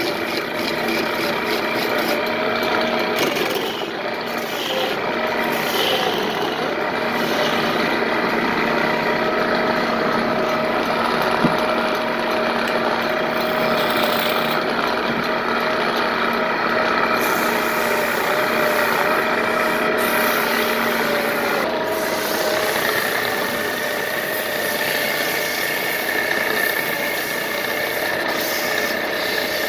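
Wood lathe running steadily while a hand-held chisel cuts a spinning wooden cot leg: a constant machine hum under the scraping of the tool on the wood.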